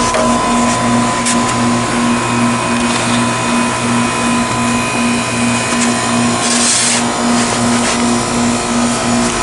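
Goodman GSH13 heat pump outdoor unit running: a steady fan rush with a hum that pulses about three times a second. The unit is running in heating mode while struggling to reach the thermostat's set temperature, with snow packed into its condenser coil. A brief hissing scrape comes about six and a half seconds in.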